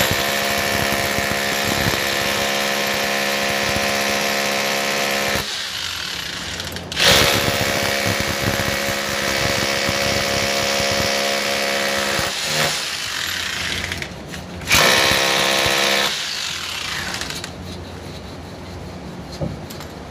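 Rotary hammer drill boring into a concrete wall, in three runs: a long one at the start, another from about seven seconds, and a short one around fifteen seconds, with brief let-ups between.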